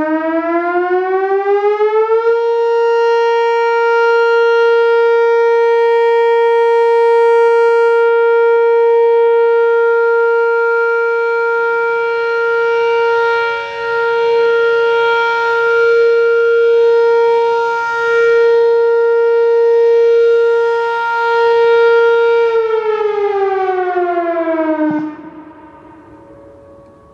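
Whelen WPS-4004 electronic outdoor warning siren sounding its Alert signal in a test: a steady tone that starts abruptly and glides up in pitch over about two seconds, holds for about twenty seconds as its loudness swells and dips, then winds down in pitch and stops about 25 seconds in.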